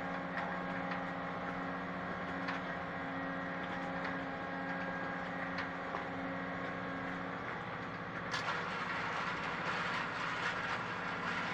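A motor running steadily with a low hum and faint ticking. About eight seconds in, a hiss rises over it and holds.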